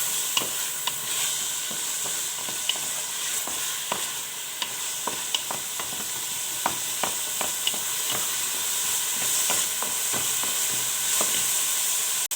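Diced red bell pepper and onion sizzling in oil in a pot, with a utensil clicking against the pot now and then as the vegetables are stirred.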